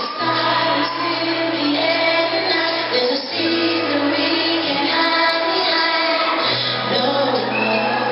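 Female pop vocal group singing live over a band, with held bass notes that change about every three seconds.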